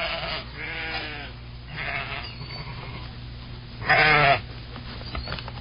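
Sheep bleating four times in wavering calls, the last one, about four seconds in, the loudest.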